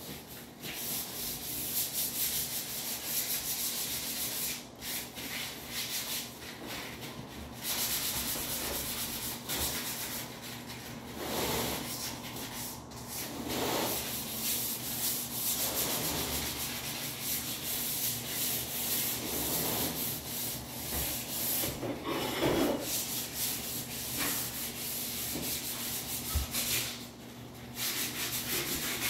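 Sandpaper rubbed by hand over a patched wall in quick repeated strokes, a continuous scratchy hiss.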